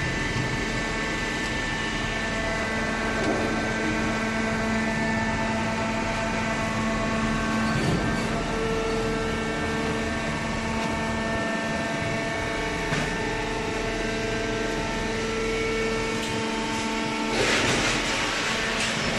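Industrial cardboard shredding and baling machinery running steadily, a machine drone with several steady whining tones. Near the end a louder hissing rush comes in over it.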